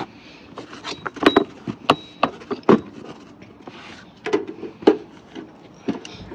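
Irregular knocks and clanks from hand work on a sliding-gate track, about a dozen sharp strikes spread unevenly, the loudest a little over a second in, near two seconds, near three seconds and near five seconds. One strike about a second in is followed by a high ringing tone that lasts nearly a second.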